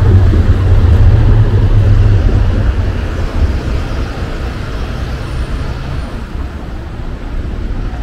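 Tram and a car passing close on a city street, a loud low rumble that fades over the first few seconds as they move away, leaving steady background traffic noise.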